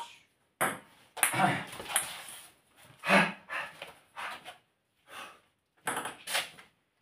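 Table tennis rally: a celluloid ping-pong ball clicking off the bats and the table, hit after hit, roughly every half second to a second. A short vocal sound about three seconds in is the loudest moment.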